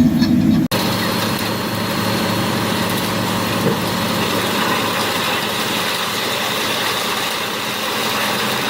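Large machine engine running steadily, a constant hum and hiss with no revving. An abrupt edit cut just under a second in switches from one machine's sound to another's.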